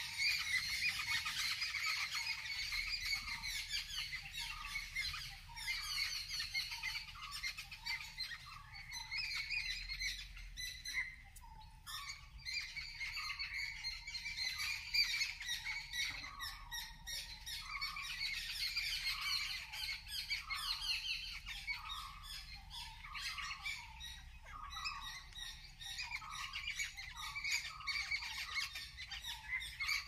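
Forest birds calling together: many overlapping high chirps and calls, with one bird repeating a short lower note about once a second.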